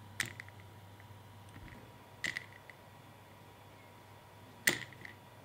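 A small figurine being tapped with a finger on a table mat: three light clicks about two and a half seconds apart, each followed by a brief ringing rattle, over a faint steady hum.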